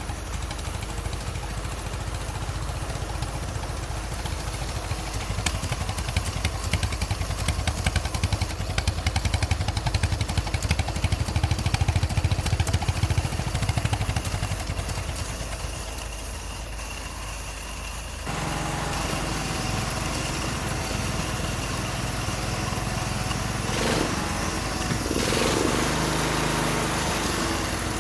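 1926 Fordson snow tractor's four-cylinder engine running with a rapid, even beat, getting louder partway through. Near the middle the sound changes suddenly to a steadier running note with a faint whine.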